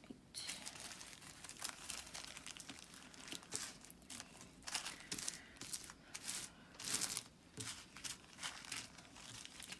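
Small plastic zip-lock bags of diamond-painting crystal drills crinkling in an irregular patter as a hand picks them up and sets them down.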